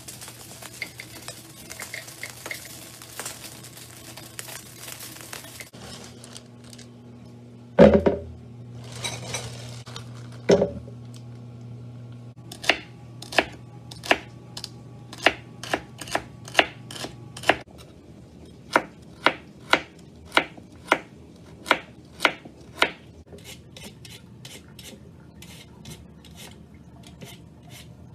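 A ceramic knife chopping celery on a wooden cutting board: about sixteen sharp, even strokes, roughly one and a half a second, in the middle of the stretch. Before it comes a steady hiss, then two heavy knocks, which are the loudest sounds; fainter ticks follow the chopping.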